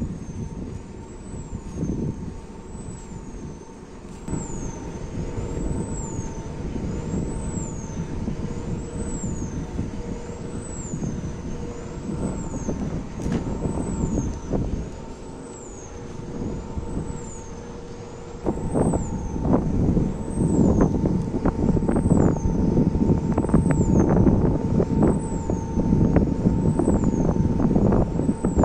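Wind turbines running: a steady mechanical hum with a high whine that rises and falls about once a second. Wind rumbles on the microphone, growing louder about two-thirds of the way through.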